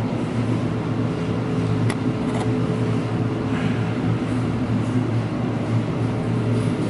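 A steady low mechanical hum with a faint high tone held above it.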